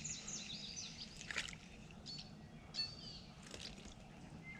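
Songbirds chirping: quick runs of high notes at the start, then single short calls about two and three seconds in, over faint outdoor background. A faint short knock comes about a second and a half in.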